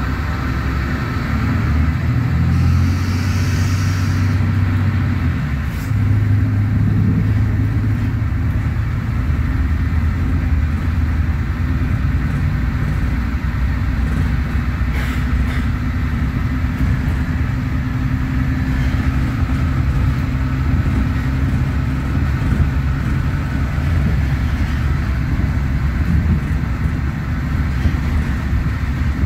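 Mercedes-Benz OM936LA inline-six diesel of a city bus, heard from inside the cabin, running steadily under load. A brief hiss comes a few seconds in and a single click about halfway.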